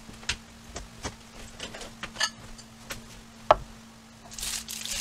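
Light clicks and knocks of kitchen items being handled on a wooden cutting board, then a sharper, briefly ringing clink about three and a half seconds in as a ceramic plate is set down. A short rustle near the end.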